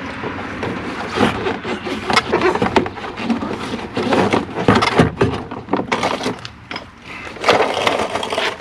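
Irregular clicks, knocks and rattles of truck door parts being handled and fitted during a door handle replacement.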